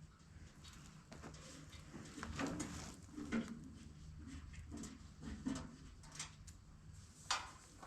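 Faint, irregular clicks and light knocks of a combine part being worked loose by hand, over a steady low hum.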